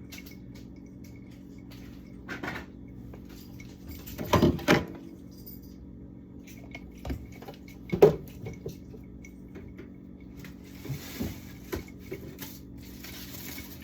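Food containers and jars knocking and clattering as they are handled and set down while a refrigerator is being emptied: a few separate clunks, the loudest about four and a half and eight seconds in, over a steady low hum.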